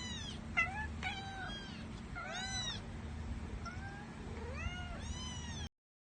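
Kittens meowing in short, high-pitched, arching calls, about six in quick succession over a steady low hum, until the sound cuts off abruptly near the end.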